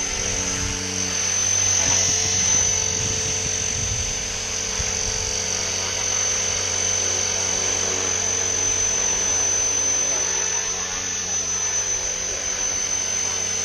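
Electric GAUI X3 RC helicopter hovering at medium headspeed: a steady high motor whine over a lower rotor and gear drone. It grows louder over the first two seconds, then holds steady.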